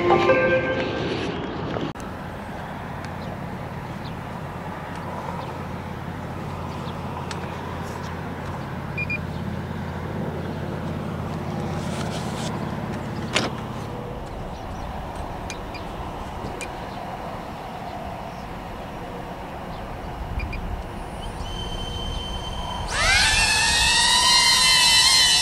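A low, steady car-cabin rumble with a few sharp clicks. About 23 s in, a DJI Avata FPV drone's ducted propellers spin up with a rising whine that then holds steady, louder than anything before it.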